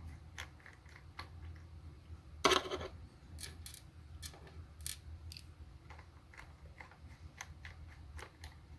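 Small plastic clicks and taps as the casing of a power bank is pried and its parts are worked loose by hand, with one louder crackling snap about two and a half seconds in. A faint steady low hum runs underneath.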